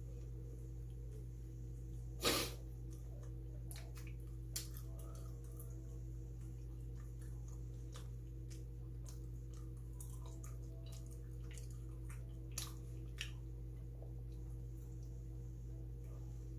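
Mouth sounds of someone eating bungeoppang: scattered soft chewing clicks and smacks, with one louder brief sound a little over two seconds in, over a steady low hum.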